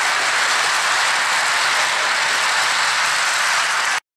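Lionel O-gauge model train, a J-Class steam locomotive pulling freight cars, running past on floor track: a steady rolling noise of wheels and motor. It cuts off abruptly near the end.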